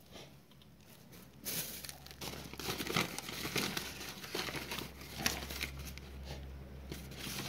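Plastic bag wrapped around an oil catch cup crinkling as it is handled under a scooter's drain plug, starting about a second and a half in and going on as a busy crackle with small clicks.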